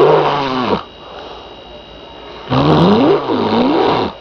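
A man snoring heavily. Two loud, long snores come about three seconds apart, the second starting about two and a half seconds in, each with a pitch that rises and wavers.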